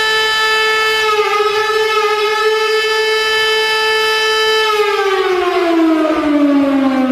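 Amur Khabarovsk hockey goal siren sounding one loud, steady tone, then winding down in pitch from about five seconds in.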